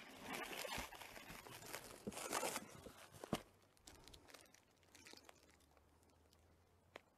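Plastic bags and taped wrapping rustling and crinkling as a package is pulled out of a cardboard box, loudest in the first two and a half seconds. A single knock comes a little over three seconds in, then only faint handling clicks.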